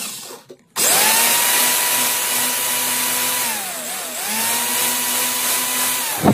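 Electric drill boring a twist bit through a wooden tube. Its motor whine spins up about a second in, slows and drops in pitch briefly midway, picks up again, and stops abruptly near the end.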